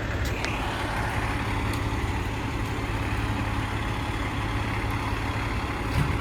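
Fire truck's diesel engine idling, a steady low drone with a few faint clicks and a light knock near the end.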